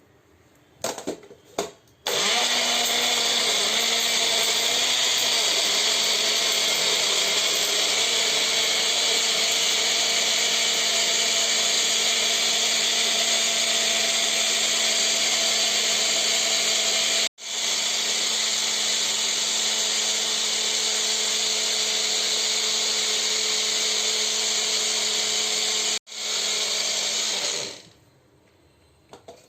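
Electric mixer-grinder (mixie) running at full speed, blending cucumber, ginger, mint and water in its jar. It starts about two seconds in after a few clicks, drops out for an instant twice and picks up again, and winds down shortly before the end.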